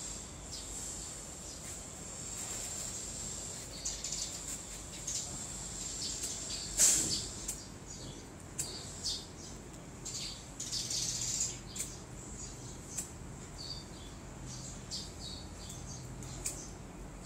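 Handling noise from unboxing a welding helmet: scattered short clicks and crinkly rustles of plastic and packaging, with one louder knock about seven seconds in.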